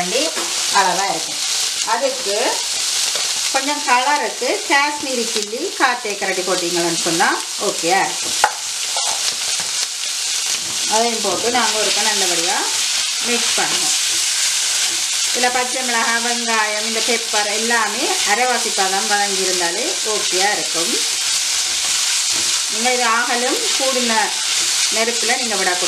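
Sliced onions, bell peppers and green chillies sizzling with tomato ketchup in a nonstick wok while a slotted spatula stirs and scrapes them. The spatula squeaks against the pan in short wavering tones, on and off over the steady sizzle.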